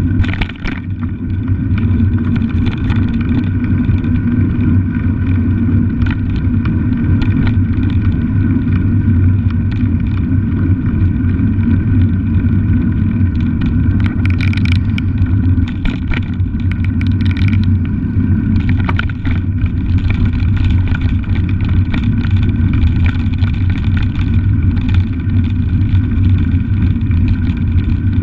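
Steady rumble of a bicycle being ridden, picked up by a camera on the bike: wind on the microphone and tyre noise on a wet paved path, with scattered small clicks and rattles.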